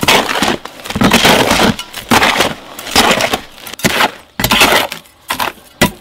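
Steel trowel scraping and turning a dry mortar mix of Rhine sand, trass cement and white lime in a plastic mortar tub, a gritty scrape repeated in strokes a little more than once a second.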